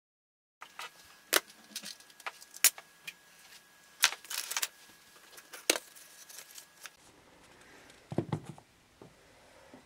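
A metal pencil tin and its pencils being handled: a string of sharp metallic clicks and clinks, then a low thump with some handling noise about eight seconds in.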